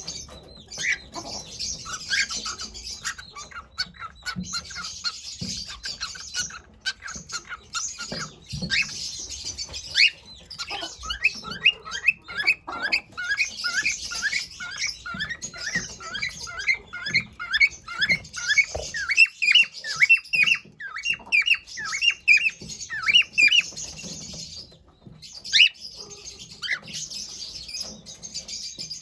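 Pet cockatiel chirping: short, quick chirps repeated several times a second in long runs, over a breathy hiss.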